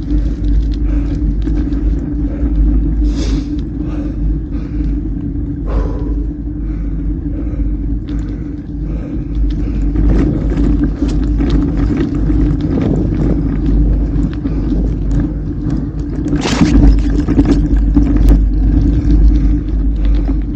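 Mountain bike on a forest road: a steady low rumble of wind on the microphone over tyre noise, with frequent small rattles and clicks from the bike, a little louder near the end.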